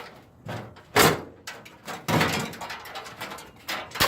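Knocks, scrapes and clatter of metal appliance parts being handled and pulled apart, with one sharp knock about a second in.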